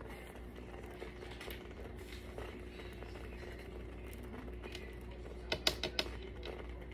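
Light clicks and knocks of things being handled on a kitchen counter, with a quick run of about four sharp clicks a little after five and a half seconds in, over a steady low hum.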